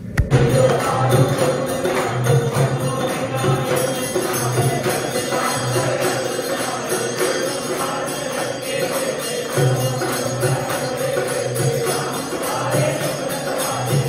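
Hindu devotional music with jingling metal percussion over a steady beat.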